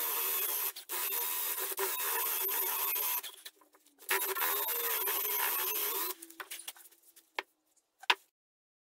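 A plywood and MDF pulley blank spun by a cordless drill while its grooves are cut and rasped, a steady dry rasping over the drill's motor whine. It stops about three seconds in, starts again a second later, and stops about six seconds in as the drill runs down, followed by two sharp clicks near the end.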